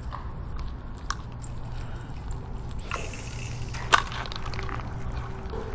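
Spinning rod and reel being handled on a concrete seawall, with one sharp knock just before four seconds in, the loudest sound, and a lighter click about a second in, over a steady low rumble.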